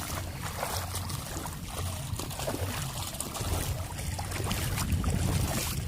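Shallow seawater sloshing and trickling, with scattered small splashes over a steady low rumble.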